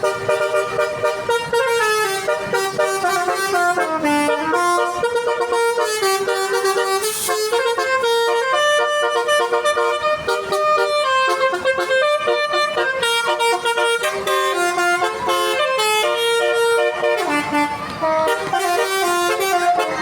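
Telolet horns of buses: multi-tone musical air horns sounding one stepped melody after another without a break.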